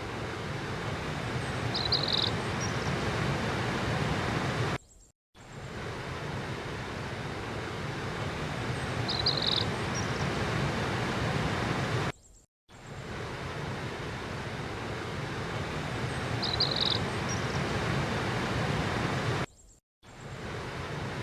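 Rushing river water, a steady noisy hiss, with a single short high bird chirp. The same recording loops about every seven and a half seconds, with a brief cut to silence at each repeat, so the chirp comes three times.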